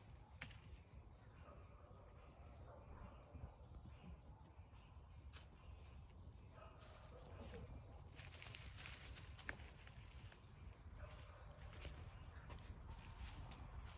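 Near silence: faint outdoor ambience with a steady high-pitched insect trill, a low rumble underneath and a few faint ticks.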